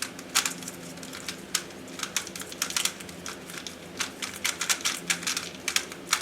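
GAN 356 i smart 3x3 speedcube being turned fast by hand in a scramble, its plastic layers clacking in quick, irregular runs of clicks.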